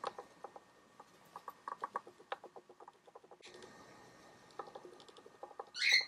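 A cockatiel and a budgerigar make a run of soft, quick clicks and ticks, followed by one short, sharp chirp near the end.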